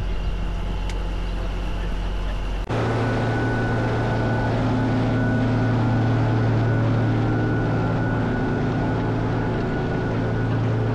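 Diesel engine of a large four-wheel-drive tractor running steadily. About two and a half seconds in, the sound changes abruptly to a louder, steadier engine hum.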